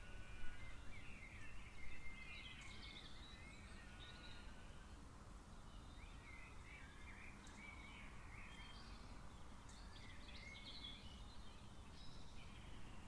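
Birds chirping and calling in quick, overlapping phrases over a faint steady low rumble. The calls are busiest and loudest in the first two seconds, thin out briefly in the middle, then pick up again.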